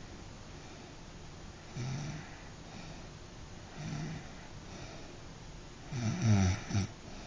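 A sleeping person snoring: three snores about two seconds apart, the last one the loudest and longest, with a wavering, rattling pitch.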